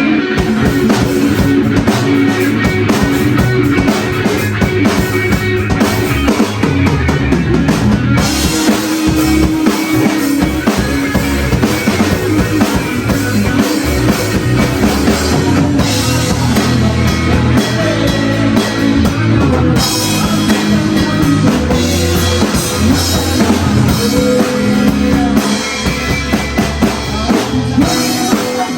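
Live rock band playing an instrumental passage: drum kit with bass drum and rimshots keeping a steady beat under bass and guitar.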